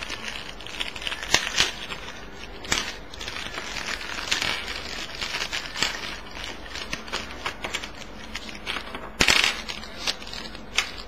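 Thin clear plastic bag crinkling and rustling as it is opened and handled, with scattered sharp clicks of small plastic parts. A louder burst of crinkling comes about nine seconds in.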